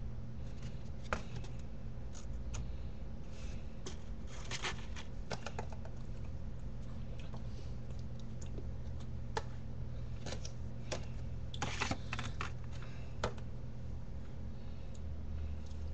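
Scattered light clicks and taps, some bunched in short runs, from hands moving while signing and handling small cardboard cards, over a steady low hum.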